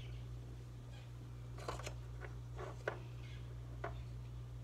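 A few light, sharp clicks and taps of a measuring spoon against a spice tin and mixing bowl while scooping ground nutmeg, over a steady low hum.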